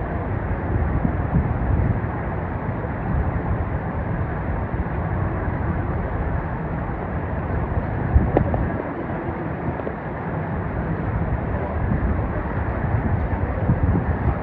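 Mountain stream water rushing steadily with a deep rumble. A single brief knock about eight seconds in.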